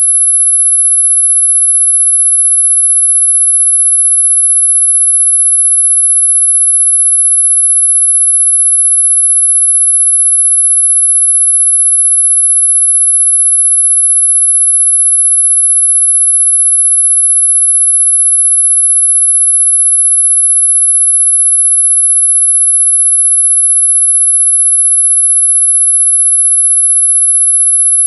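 A single steady, very high-pitched pure tone that does not change: the 'mosquito' ringtone, a tone pitched high enough that many older listeners can barely hear it.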